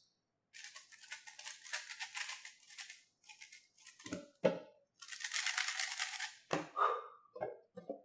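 A 3x3 speedcube being turned very fast, its plastic layers giving a quick rattling clatter of clicks in two runs of a few seconds, with a few short lower knocks and sounds between and after them.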